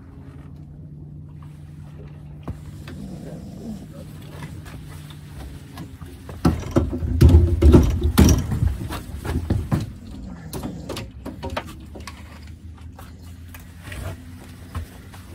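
A low steady hum, likely the boat's motor, with a burst of loud thumps and clatter from about six and a half to ten seconds in, as a landed walleye and the gear are handled on the pontoon boat's deck.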